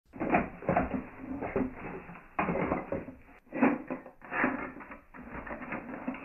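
Rummaging sound effect: things being rattled and shifted about in a closet, in a run of clattering, rustling bursts.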